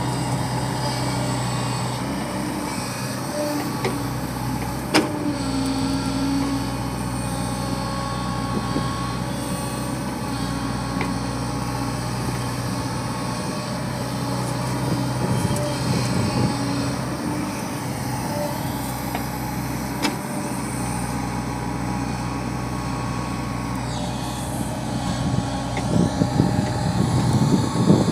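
JCB 140 tracked excavator's diesel engine running steadily under load as it digs soil and loads a tipper truck, with two sharp knocks along the way and a louder, rougher rumbling stretch near the end.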